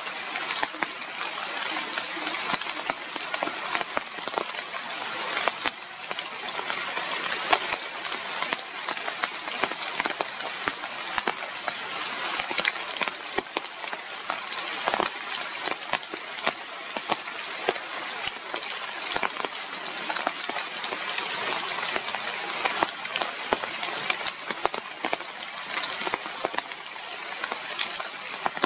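Steady rain falling, with many sharp individual drop hits throughout.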